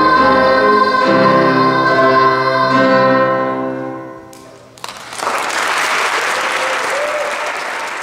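Children's choir holding the final chord of a song, which fades out about four seconds in. Audience applause breaks out a moment later and continues.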